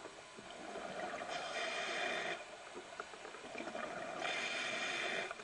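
A scuba diver breathing through a regulator underwater, twice: each breath is a rush of noise lasting one to two seconds, with quieter pauses between.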